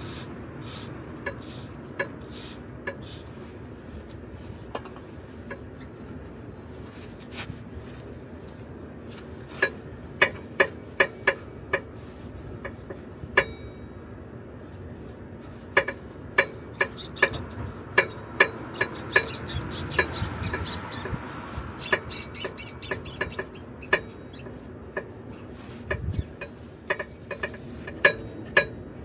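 Sharp clicks and light knocks, some single and some in quick runs of three or four, over a low steady hum.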